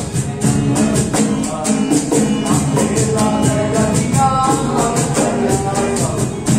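Small acoustic group playing: a strummed acoustic guitar and a cajon, with a rattling percussion keeping an even beat and voices singing.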